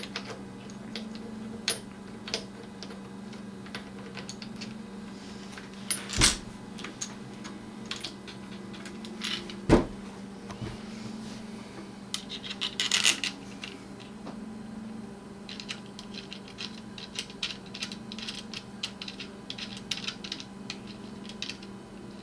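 Small metallic clicks and clinks of a shotgun's aluminum battle-rail clamps, bolts and tools being handled and fitted, with two louder knocks about six and ten seconds in. A steady low hum runs underneath.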